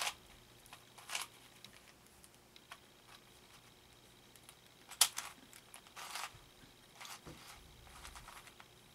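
Scattered plastic clicks and clacks of a ShengShou 4x4 Morphix puzzle cube being turned and handled, the loudest a single sharp click about five seconds in.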